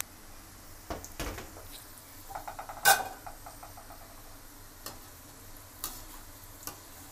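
Chicken pieces deep-frying in hot oil with a steady sizzle, while a metal slotted spatula knocks and scrapes against the kadai several times. The loudest clack comes about three seconds in, just after a quick rattle of the spatula against the pan.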